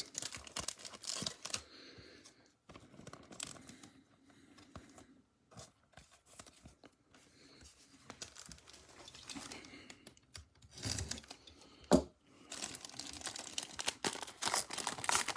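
Plastic wrappers of trading card packs being torn open by gloved hands, with crinkling. There is one sharp snap about twelve seconds in.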